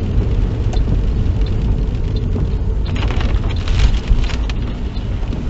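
Road and engine noise heard inside a car driving on wet roads in the rain: a steady low rumble, with a louder hiss for about a second and a half from about three seconds in.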